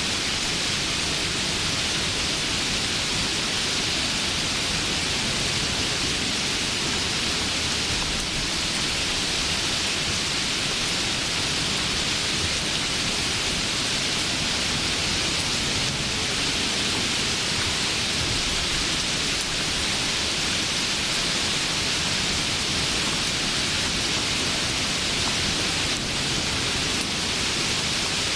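Steady rain: an even hiss that holds the same level throughout, with no separate drops, thunder or other events standing out.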